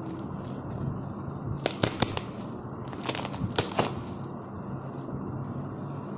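Thin plastic wrapping being torn and pulled off a small box, crinkling and crackling sharply in two clusters, about two seconds in and again between three and four seconds in.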